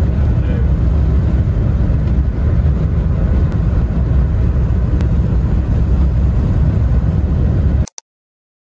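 Steady low rumble of road and engine noise inside a moving car's cabin, cutting off suddenly near the end.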